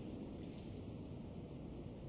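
Faint, steady low rumble and hiss of a large mosque hall's room tone, with no voice, while the congregation holds a silent prostration in the middle of the recitation.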